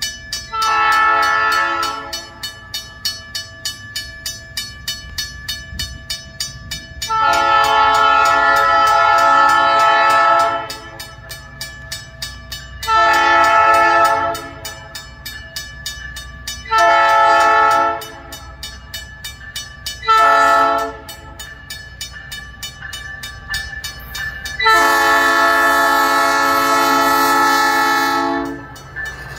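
Horn of the Budd RDC 1501 rail diesel car sounding for the grade crossing in several multi-tone blasts, ending in a long, long, short, long sequence with the final blast held. A crossing signal bell dings steadily underneath throughout.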